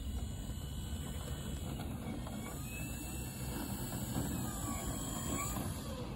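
Large electric RC aerobatic plane (Acrostar MK2, Hacker Q80 motor) taxiing on grass at low throttle: a faint motor-and-propeller whine that rises and falls in pitch about four to five seconds in, over a steady low rumble.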